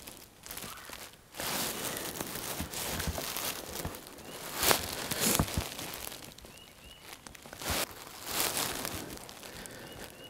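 Irregular rustling and crinkling, with scattered crunches and clicks, coming and going in bursts. A few short, faint high chirps sound about four and a half seconds in, twice around seven seconds, and near the end.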